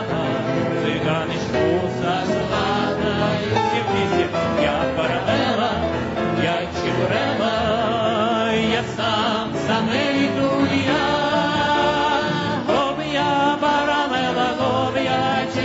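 A song sung with instrumental accompaniment; the singing has a wavering vibrato over a steady bass line.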